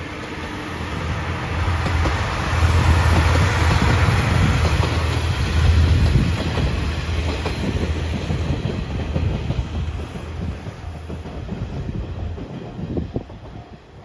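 Seto-Ohashi Anpanman Torokko diesel train passing close by: a steady low engine hum with wheels clacking over rail joints. It grows loud within the first few seconds, then slowly fades as the train moves away.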